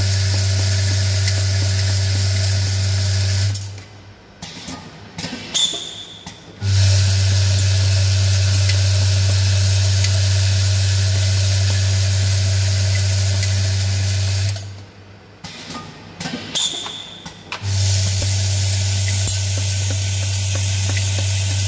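Vibratory bowl feeder of a screw-counting machine running with a steady electric hum, the screws rattling and hissing as they shake along the bowl. The feeder stops twice for about three seconds, leaving only a few clicks and rattles, and then starts again.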